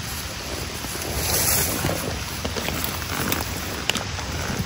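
Steady rain falling: an even hiss with scattered sharp drip ticks, swelling louder for a moment about a second in. Near the end come a few soft knocks and rustles of footsteps and a backpack being handled.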